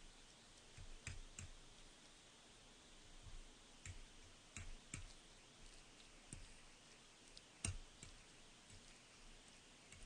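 Metal fork clicking and scraping against a plate as spaghetti is twirled: faint, scattered clicks a second or so apart.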